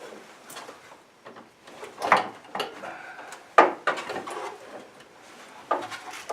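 Irregular knocks, clunks and rustling as the air intake hose and cover are worked loose by hand from the top of the engine, with sharper knocks about two, three and a half and nearly six seconds in.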